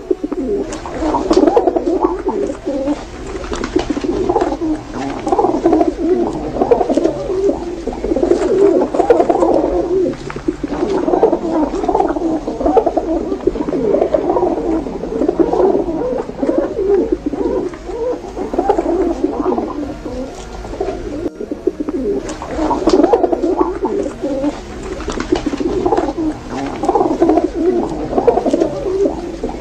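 A flock of pigeons cooing, many overlapping coos making a steady, dense chorus, with a momentary cut about two-thirds of the way through.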